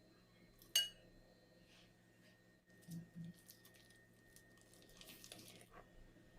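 Kitchen utensils against a mixing bowl: one sharp clink with a brief ring a little under a second in, two soft knocks about two seconds later, then a short scraping.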